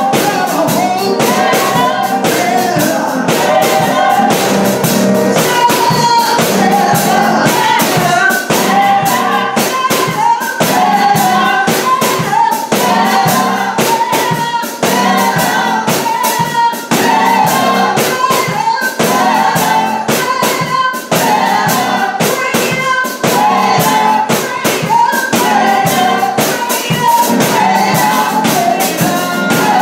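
Live gospel praise band: women singing lead into microphones over a Roland RD-700 stage piano and a drum kit keeping a steady beat.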